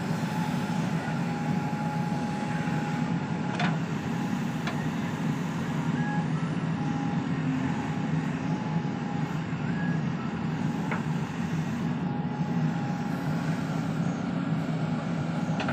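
JCB 3DX backhoe loader's diesel engine running steadily under load while the backhoe arm digs, with a thin whine that comes and goes and a few sharp knocks.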